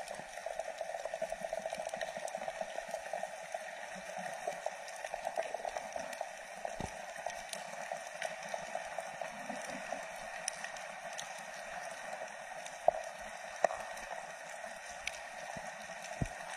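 Underwater reef ambience heard through an action camera's waterproof housing: a steady muffled water hiss with scattered faint clicks and crackles, and two sharper clicks a little over halfway through.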